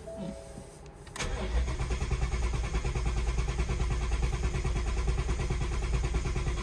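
Supercharged Ford 5.0 Coyote V8 of an S550 Mustang fires up about a second in and then runs steadily. This is its first start after the VMP Gen3R supercharger install.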